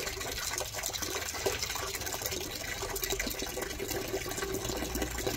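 Water splashing and running while hands scrub a wet, soapy Rottweiler's coat, with a faint steady hum underneath.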